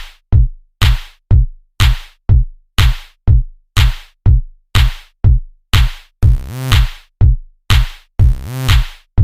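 Electronic background music with a drum-machine beat: punchy kick drums about twice a second, with pitched synth notes over some of the beats.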